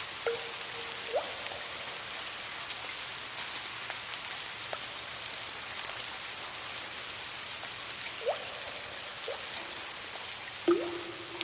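Steady soft rain patter with water drops falling into water every second or few, each a short rising plink. The loudest drop comes near the end and rings on briefly.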